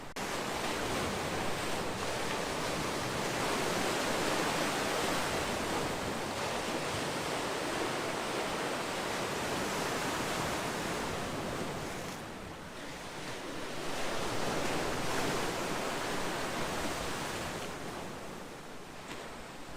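Ocean waves surging and washing in steady noise, swelling and easing off about two-thirds through, then building again before fading near the end.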